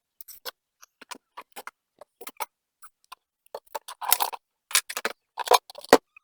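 Irregular clicks, taps and short rustles of unboxing: packaging and a small angle grinder being handled, with a sharper knock near the end.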